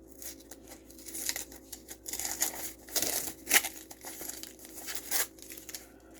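Packaging being handled and torn open by hand: irregular crinkling and tearing rustles, loudest about three seconds in.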